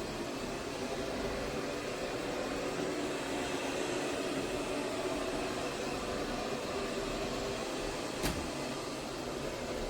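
MAMNV robot vacuum and mop combo running as it mops, a steady motor and fan hum with a single click about eight seconds in.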